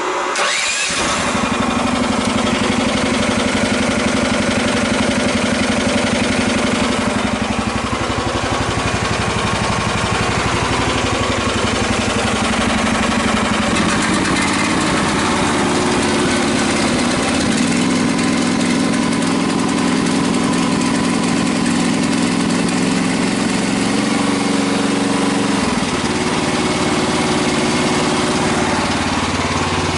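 Typhon Terror One mini excavator's engine catching about a second in and then running steadily. Its note dips and shifts several times as the machine's hydraulics are worked.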